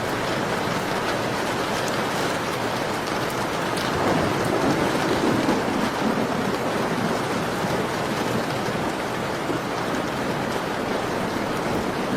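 Steady falling rain, an even hiss of many drops, swelling with a deeper rumble for a couple of seconds about four seconds in.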